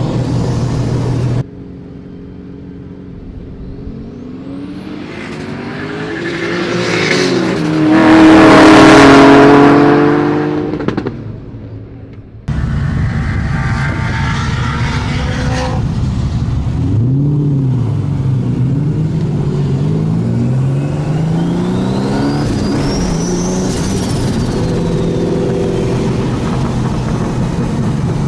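Race cars accelerating hard and passing close by at full throttle, loudest about nine seconds in, with high whines rising over the engine note. After an abrupt break the sound switches to a loud engine running with its pitch swinging up and down.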